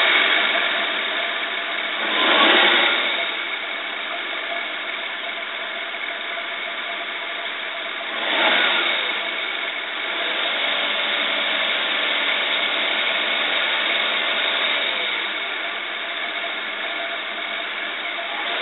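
Toyota 2JZ-GTE twin-turbo inline-six running at a rough idle, with two brief throttle blips about two and eight seconds in. The rough running is put down to overfueling, later traced to injectors needing service, a faulty O2 sensor and bad spark plugs.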